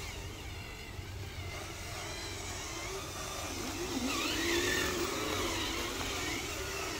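Radio-controlled toy dump truck driving, its motor sound wavering up and down in pitch with the throttle and loudest about four to six seconds in.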